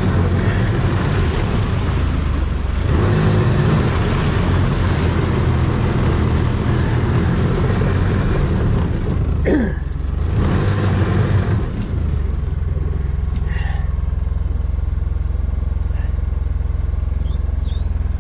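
Side-by-side UTV engine running while it is driven over a rough dirt track, with rattling and brush noise over the engine. A short falling squeal comes about halfway through. About twelve seconds in the rattle drops away and the engine settles to a steady, even hum.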